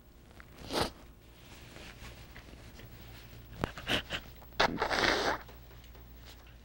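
A crying woman sniffs once near the start, then blows her nose into a tissue for under a second about five seconds in, with a few short rustles of the tissue just before.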